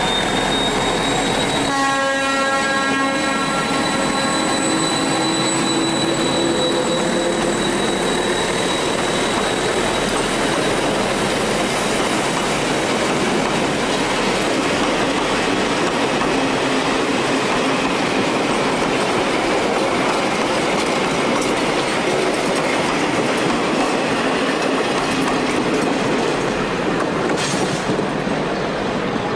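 Diesel locomotive hauling a passenger train past, its engine running under load over the steady noise of the coaches rolling by. A pitched horn blast starts suddenly about two seconds in, its lower tones carrying on for several seconds.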